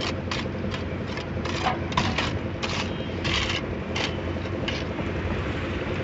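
Engine of the concrete mixer and hoist running steadily, with many short scraping rattles of wet concrete and gravel being tipped and worked.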